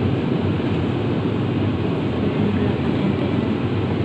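Steady low rumbling background noise of a supermarket aisle, even throughout with no distinct events.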